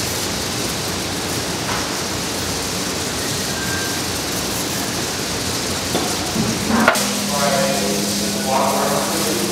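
Steady electronic static hiss. About seven seconds in, a sharp click, then a steady low hum comes in along with a quick run of stepped electronic tones.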